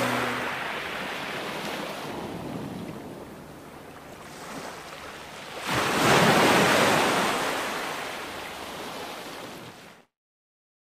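Small waves washing in over sand in the shallows. One wave rushes in louder a little past halfway, then ebbs away, and the sound cuts off just before the end.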